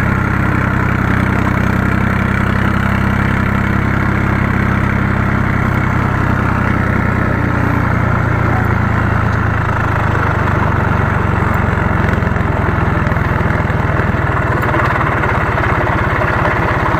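IHC McCormick 423 tractor's diesel engine running steadily.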